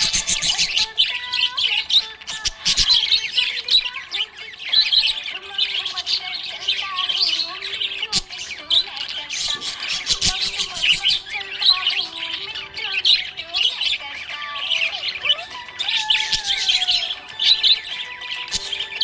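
A flock of small pet parrots chirping and chattering, with short squawks. The calls come in quick, dense overlapping bursts with no break.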